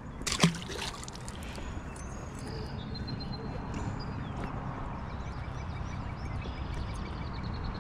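A released largemouth bass splashes back into the pond once, sharply, about half a second in. After that comes steady low outdoor background noise with a few faint bird chirps.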